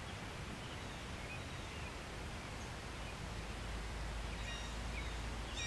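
Quiet outdoor ambience at the water's edge: a low steady rumble with a few faint, scattered bird chirps.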